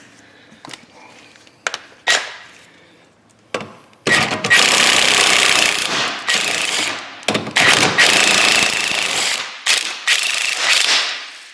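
A handheld power impact tool hammering on a seized rear suspension bolt in three long, loud bursts, starting about four seconds in. A few metal clinks come before the bursts.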